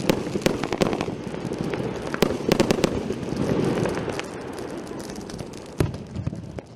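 Hestia Royal Time 146-shot firework cake firing its last shots: many sharp bangs in quick succession over the first three seconds, then a denser rushing noise that thins out, with one last bang near the end as the cake burns out.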